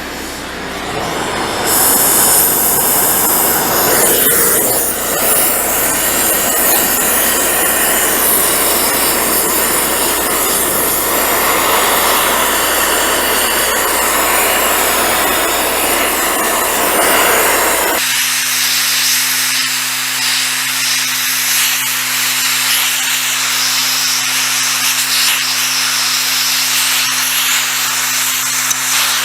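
Gas heating torch flame hissing steadily as it heats a steel bar to bend it into shape, with a steady low hum joining in about two-thirds of the way through.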